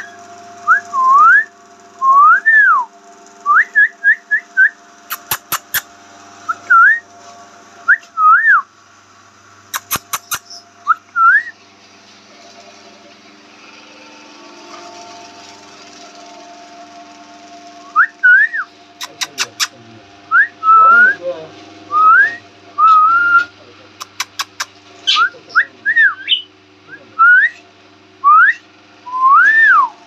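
Rose-ringed (Indian ringneck) parakeet whistling: short, loud notes that rise or arch up and down, given in runs, with a pause in the middle. Bursts of sharp clicks come a few times in between.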